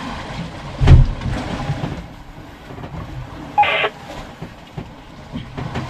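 Low background rumble with one sharp thump about a second in, and a brief squawk of two-way radio chatter a little past halfway.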